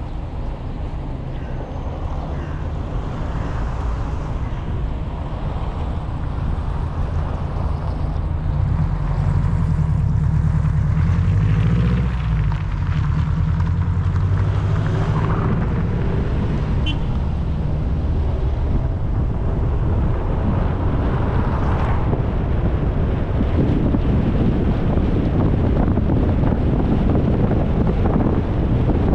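Motor vehicle engine running with a steady low rumble, its pitch climbing for several seconds to a peak about twelve seconds in and then dropping, over road noise and wind buffeting the microphone.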